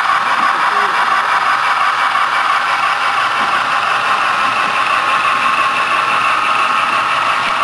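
HO scale model freight train running past at close range: a steady whirring rattle from the model steam locomotive's motor and the coal hopper cars' wheels on the rails.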